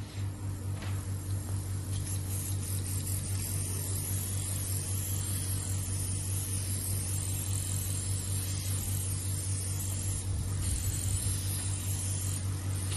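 Hydrofacial machine's oxygen spray handle running: a steady low mechanical hum from the machine's pump with an even hiss of air and mist from the airbrush-style nozzle.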